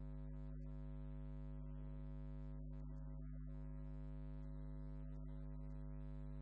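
Steady low electrical mains hum at an unchanging level, with no speech heard over it.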